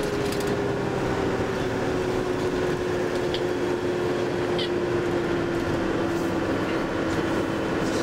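Tour bus running along a wet road, heard from inside the cabin: a steady drone of engine and road noise with a whine that slowly drops in pitch. A couple of short high chirps sound in the middle.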